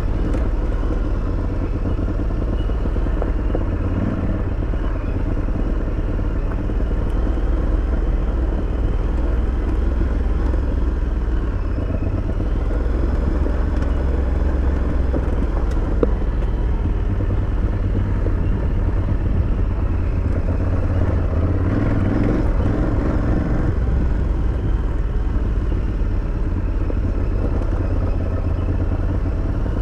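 Aprilia Tuareg 660 motorcycle's parallel-twin engine running steadily while riding an off-road bush track.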